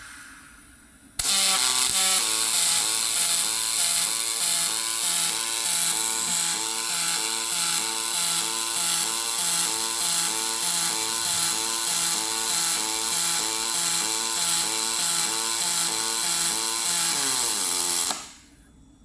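Robotic welding arc on aluminium: the arc strikes about a second in and runs with a steady crackling hiss, pulsing regularly about twice a second. Near the end its tones slide down and it cuts off.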